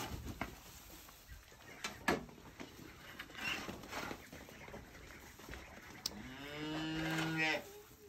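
A cow moos once, about six seconds in: a single call of about a second and a half that rises at the start and then holds steady.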